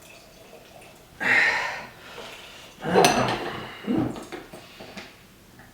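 A navel orange being squeezed for fresh juice: clatter and scraping of kitchenware in three short bursts, about a second, three seconds and four seconds in.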